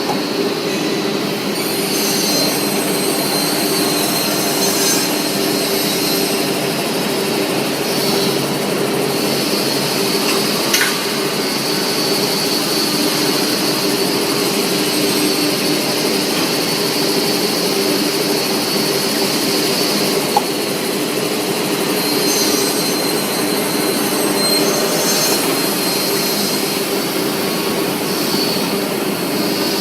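Industrial horizontal panel saw for cutting MDF boards, running steadily with a constant hum and a high whine, and two brief knocks, one about eleven seconds in and one about twenty seconds in.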